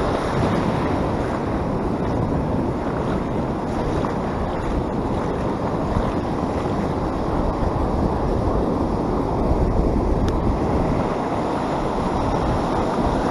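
Ocean surf breaking and washing in at the shoreline, a steady rushing wash, with wind buffeting the microphone.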